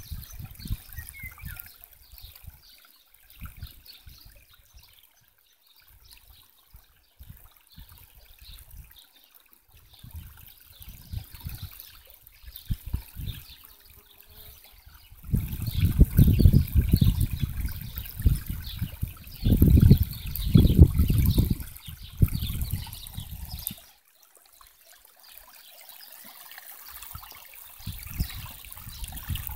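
Shallow stream water trickling over rocks. From about halfway through, for several seconds, loud irregular low rumbling buffets the microphone, like wind gusts on it.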